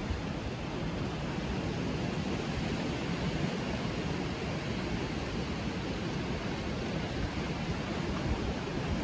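Wind rushing over the microphone together with the wash of sea surf: a steady, unbroken roar with gusty low rumbles.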